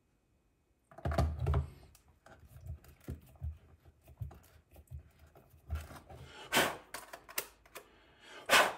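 Tapered body reamer being twisted into the plastic roof of a 1/18 scale Traxxas TRX4M Defender body to cut a 7 mm hole: irregular scraping clicks and knocks of hand-held plastic, starting about a second in.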